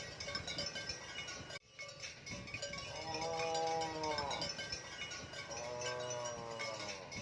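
Cattle mooing twice, two drawn-out calls of about a second and a half each, the second starting a little over a second after the first ends, over background music with chime-like tones.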